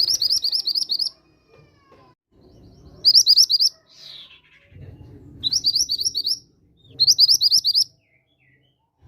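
Mantenan gunung (mountain mantenan bird) song: four short, loud phrases of rapid, evenly repeated high rising chirps, each phrase about a second long with pauses between, over fainter low background sounds.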